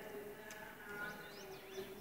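Caged finches (canaries and goldfinches) chirping faintly a few times, over a steady low hum.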